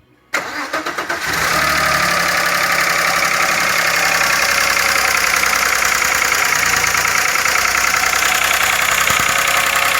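Audi A6 engine starting: a short crank about a third of a second in, catching about a second in, then running steadily at idle.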